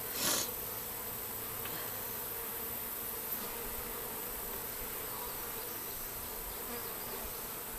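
A honey bee swarm buzzing steadily as it settles into a wooden hive box, an even hum of many bees. There is a short burst of noise right at the start.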